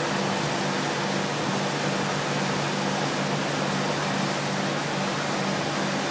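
Gray CNC vertical boring mill running under power: a steady mechanical hiss and hum with a low steady tone underneath, unchanging throughout.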